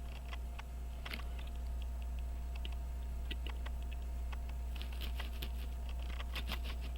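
Light, irregular clicks and taps of small metal hand tools working on a pocket-watch movement, over a steady low hum.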